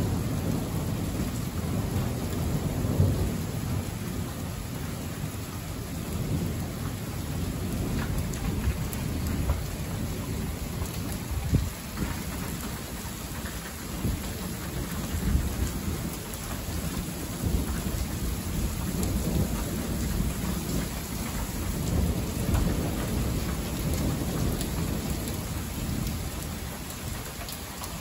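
Heavy rain falling steadily in a thunderstorm, with low thunder rumbling, swelling and fading several times.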